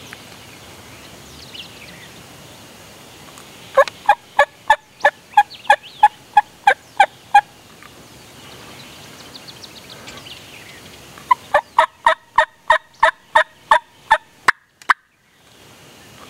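Wild turkey calling: two long series of loud, evenly spaced sharp notes, about three a second, the first about four seconds in and the second about eleven seconds in. Faint songbird chirps fill the gaps.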